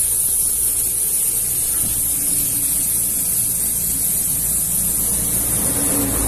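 Steady high hiss of air escaping from a truck tyre being deflated, with a low rumble coming up near the end.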